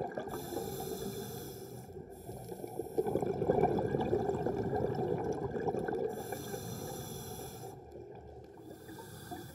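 Muffled underwater ambience recorded by a diver's camera: a low, continuous rushing of water noise that swells about three seconds in and fades toward the end.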